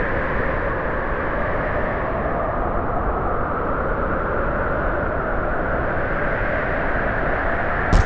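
Strong wind blowing steadily, a continuous storm rush with a slowly wavering howl.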